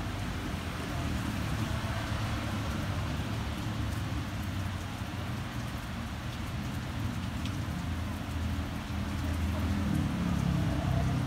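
Steady street background noise: a low rumble of traffic under an even hiss, the rumble swelling near the end.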